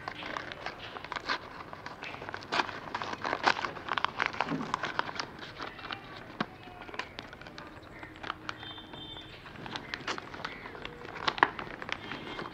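Paper rustling, crinkling and crackling in irregular bursts as a paper-wrapped parcel is pulled open by hand.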